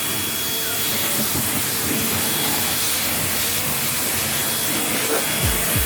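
Bennet Read electric pressure washer spraying a high-pressure water jet: a steady hiss with a thin high tone running through it.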